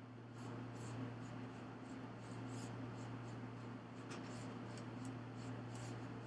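Soft, irregular scratching and rustling, many short light strokes, over a steady low electrical hum.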